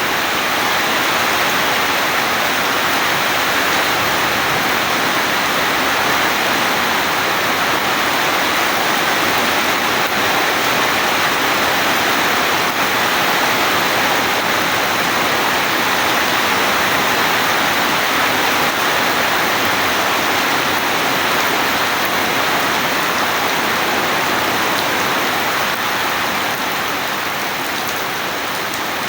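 Heavy rain falling steadily, a dense even hiss; it eases slightly near the end.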